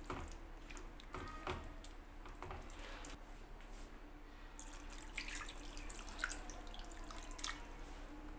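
Liquid dripping, with scattered light clicks and taps over a steady low hum.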